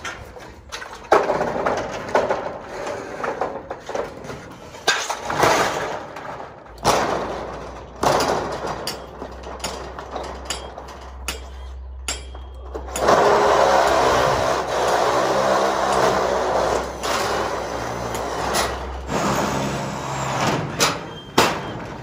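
Corrugated sheet-metal carport side panels being handled and fitted: repeated knocks and clatters of the metal, with long stretches of scraping and rattling. A steady low hum runs underneath through the middle of the stretch.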